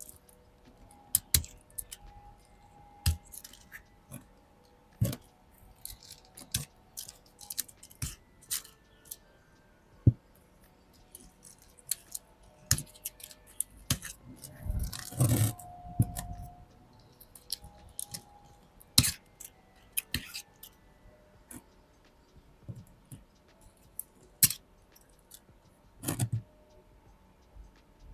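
Close-up handling of potted succulents: scattered sharp clicks and crackles of dry leaves and pots being handled, with a longer rustling crunch about halfway through.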